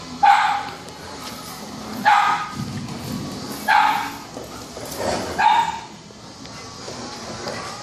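A dog barking: four loud single barks spaced about a second and a half apart.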